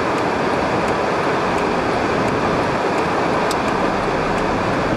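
Steady road noise of a car driving, heard from inside the cabin: tyres hissing on wet, slushy pavement.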